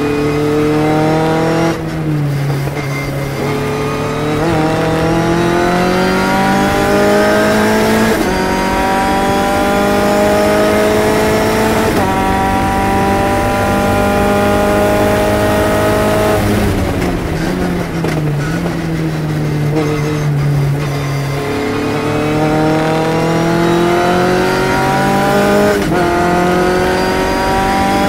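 Phantom S21 sports-racer's engine heard from the cockpit under full throttle. Its pitch climbs and drops sharply at each upshift, about every four seconds. About 17 seconds in the pitch falls for several seconds as the car slows, then it climbs through the gears again.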